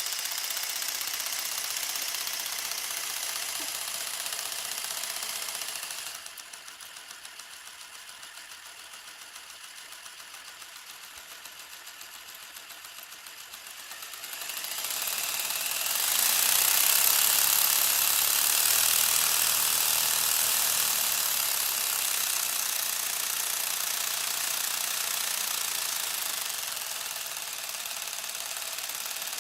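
Lego truck's motor-driven fake V8 piston engine running, with rapid plastic clatter. It drops quieter about six seconds in, then comes back louder from about fifteen seconds in.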